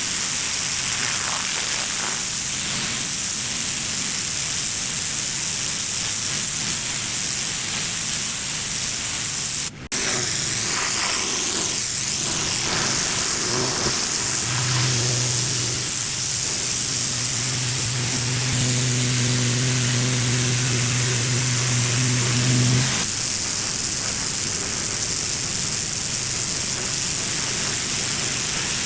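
Pressure washer spray hissing steadily as it blasts grime off a concrete driveway, broken by a brief cut about a third of the way in. Around halfway a steady low hum joins under the spray for about eight seconds, then stops.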